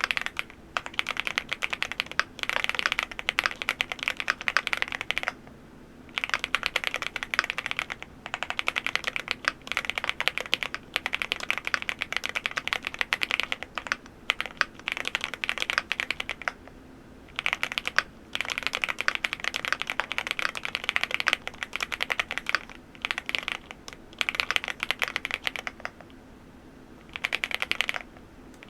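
Typing on the MCHOSE GX87, a full-aluminium tenkeyless mechanical keyboard: fast runs of keystrokes broken by brief pauses, with a steady faint hum underneath.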